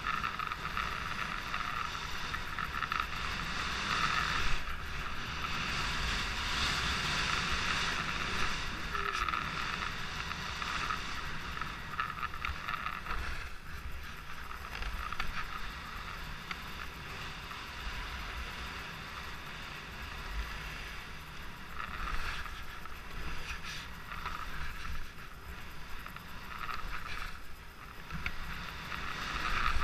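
Skis sliding over groomed snow: a steady hiss and scrape from the bases and edges that swells and fades every few seconds, with wind rumbling on the microphone at speed.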